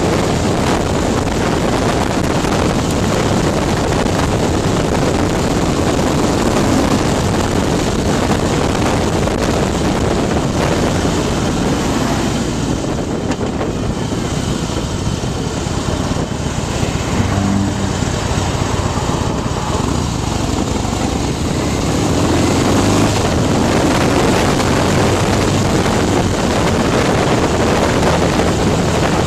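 Harley-Davidson Night Train's Twin Cam V-twin, bored out to 103 cubic inches with a Stage II big bore kit, running under way, with wind buffeting the microphone. About halfway through the wind hiss eases and the engine's low beat comes through more plainly; it grows louder again near the end.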